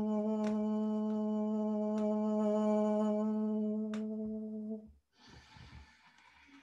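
A man humming one long, steady note with his lips closed, a low-to-mid held tone. It stops about five seconds in, and a soft hiss follows.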